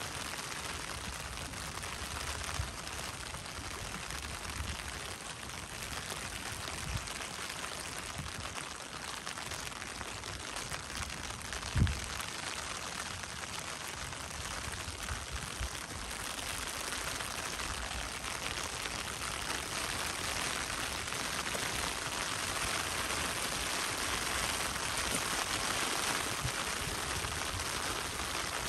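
Steady rain falling, a continuous even hiss that grows somewhat louder in the second half, with one sharp thump about twelve seconds in.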